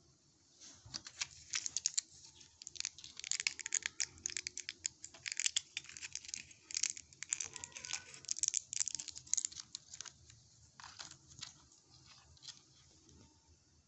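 A plastic-and-foil tablet blister pack crackling and clicking as it is flexed and a tablet is pushed out through the foil backing. The crackles come thick and fast for most of the time, then thin out to a few scattered clicks near the end.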